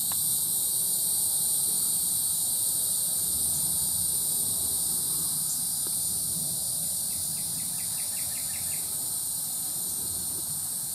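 Evening insect chorus of crickets and other night insects: a steady, dense high-pitched trilling. A short run of quick, even clicks sounds about seven seconds in.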